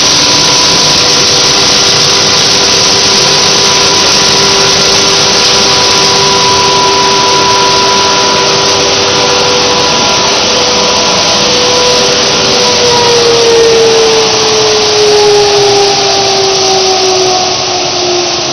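PET bottle recycling line running, its blowers and air-drying system making a loud, steady rush of air with a few steady whines. A little past halfway, one whine begins falling slowly in pitch.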